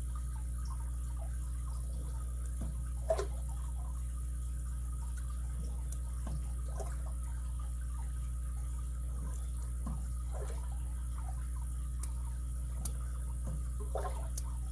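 Lock pick working the pin stack of a vintage Japanese Alpha 5-pin padlock: scattered faint ticks and small metallic clicks as pins set, with a few sharper clicks, over a steady low hum.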